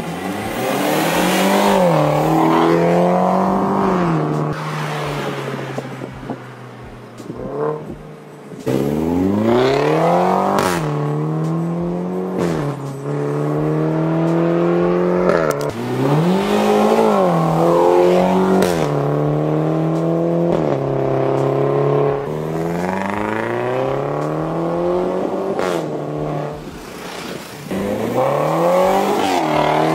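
Mercedes-Benz W205 C300's turbocharged four-cylinder engine through an Armytrix valved exhaust, accelerating hard in Sport+ mode. The note climbs, drops sharply at each upshift and climbs again, over several runs.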